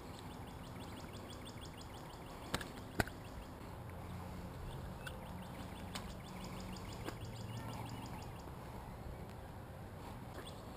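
Quiet outdoor ambience with a faint, rapid high trill repeating through most of it. Two sharp clicks come about two and a half seconds in, half a second apart.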